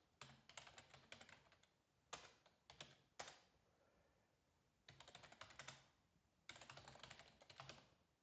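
Faint typing on a computer keyboard, in four short bursts of keystrokes with pauses between them.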